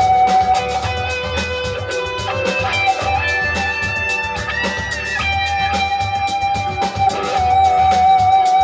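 A full band mix playing back: guitars over bass and drums, with a lead line holding long notes and a steady beat of drum hits.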